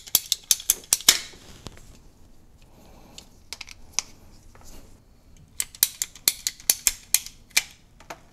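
Quick series of sharp clicks from hand tools working on the rubber transmission line as it is trimmed and clamped. The clicks come in a fast run near the start, sparse ones in the middle, and another fast run in the last few seconds.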